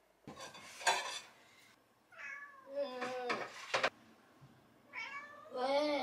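A cat meowing while dishes are washed: two drawn-out meows that bend up and down in pitch, about two and five seconds in. Dishes clatter at the sink just before them, with one sharp clink about a second in.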